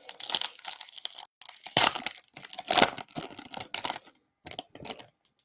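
Foil trading-card pack wrapper being torn open and crinkled: a string of irregular crackles and rips that stops near the end.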